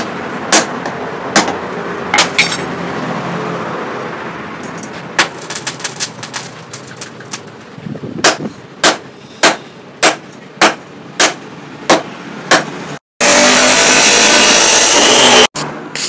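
Hammer blows on steel: a few scattered strikes, then a steady run at about one every half second. Near the end they give way to about two seconds of a very loud, steady rushing noise that starts and stops abruptly.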